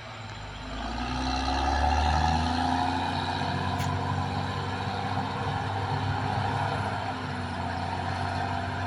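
Caterpillar D6R XL bulldozer's diesel engine running. It grows louder about a second in, then holds a steady, deep drone.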